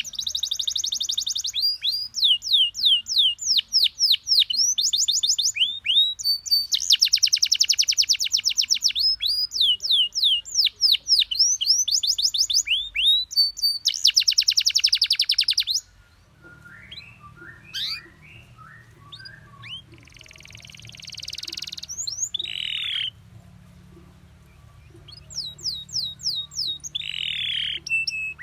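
Domestic canary singing: long, fast trills of rapidly repeated rising notes, broken after about sixteen seconds by a quieter passage of softer chirps and a buzzy note, before the fast trills return near the end.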